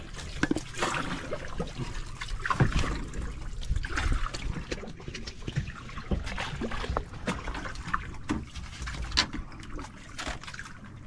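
Seawater sloshing and trickling against the hull of a small outrigger boat, with scattered knocks and clatter as fishing floats and lines are handled on board.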